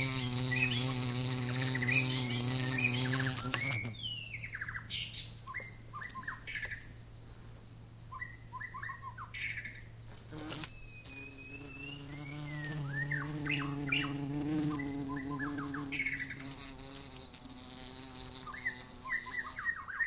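Flying insect buzzing: a steady hum that drops away about four seconds in and comes back at about eleven seconds. Short sweeping bird chirps sound in the background.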